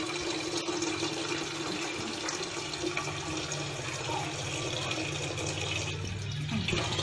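Water running steadily from a tap, with a low steady hum beneath it.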